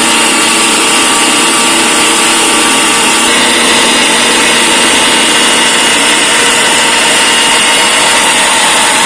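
Electric mixer grinder running steadily at full speed, grinding roasted pepper and spices into a fine paste, with a slight change in its pitch about three seconds in.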